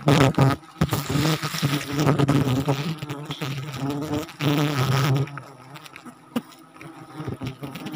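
Flying insects buzzing close by: a low drone that wavers in pitch and comes and goes. There are a few sharp knocks right at the start.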